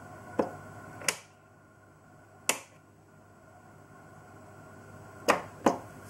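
Push button on a Tassimo pod coffee machine clicking as it is pressed again and again, five sharp clicks with uneven gaps, the last two close together. The machine will not start brewing. A low background hum drops away just after the second click and slowly returns.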